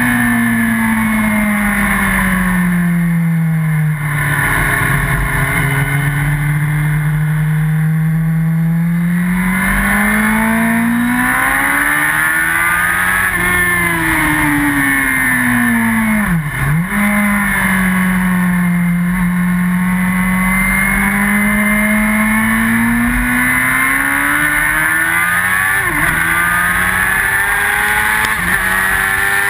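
Yamaha R1 inline-four sport bike engine at track pace, heard from on the bike with wind rush. Its pitch falls in the opening seconds and holds steady through a long corner. It then rises, dips sharply for a gear change about halfway, and climbs again with quick upshifts near the end.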